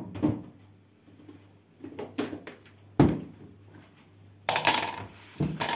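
Kitchen handling noises: plastic containers and jars knocked and set down on the countertop, a few separate knocks with the loudest about three seconds in, then a rattling, scraping clatter near the end.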